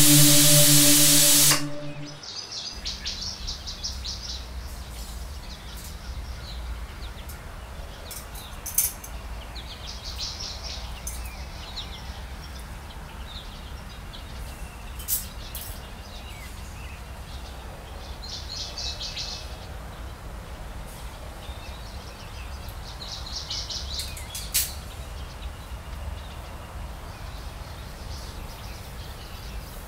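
Pressure cooker whistle blowing: a loud steam hiss with a steady hum-like tone that cuts off sharply after about a second and a half. Then birds chirp in short bursts every few seconds over a low hum, with a few faint clicks.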